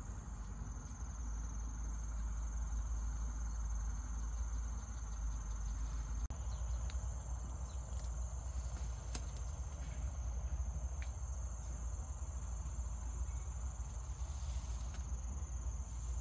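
Insects droning steadily in one high pitch, over a low rumble and a few faint clicks.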